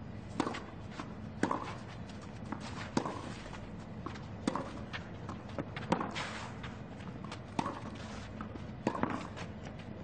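Tennis rally on a clay court: a serve followed by racket strikes on the ball, sharp hits about every second and a half, with footsteps on the clay between shots.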